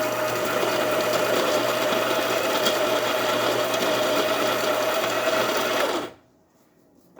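Baratza Virtuoso conical-burr coffee grinder running and grinding coffee beans at a finer setting, a steady motor whir with a constant hum; it stops suddenly about six seconds in. The grinder is running normally after repair of a fault that had kept it from grinding.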